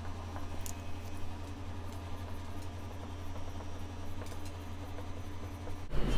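Marker writing on a whiteboard: faint squeaks and scratches of the felt tip as letters are drawn, over a steady low electrical hum that cuts off near the end.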